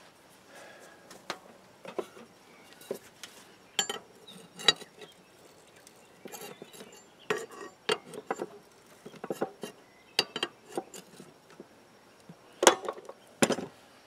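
Steel hand tools clinking and clanking as wrenches and locking pliers are handled and fitted onto a threaded winch-cable end fitting: irregular sharp metallic clicks, with the loudest two knocks near the end.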